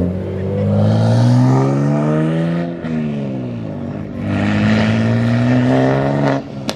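BMW M2's twin-turbo straight-six accelerating hard as the car pulls away: the engine note climbs through one gear, drops at a shift about three seconds in, then climbs again through the next gear until the sound cuts off abruptly near the end.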